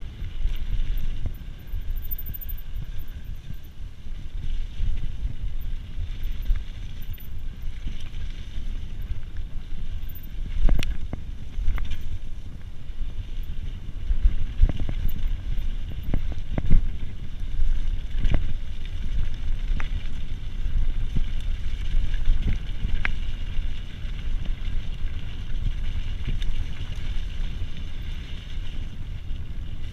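Wind rumbling on an action camera's microphone as a mountain bike is ridden, with the bike knocking and rattling over rough ground several times.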